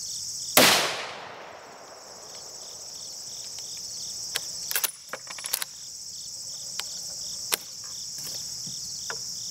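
A single .30-06 rifle shot firing an M2 armor-piercing round, about half a second in, its sharp report dying away over about a second. A few short clicks follow a few seconds later, over a steady high chirring of insects.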